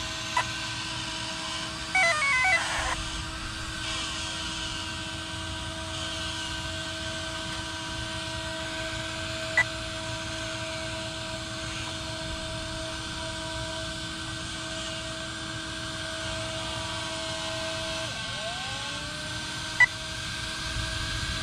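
Steady electronic tone from the powered-up RC car's twin Arrma MMX8S brushless speed controllers, with a short falling run of beeps about two seconds in and a couple of single sharp beeps later on. Near the end the tone dips and glides back up.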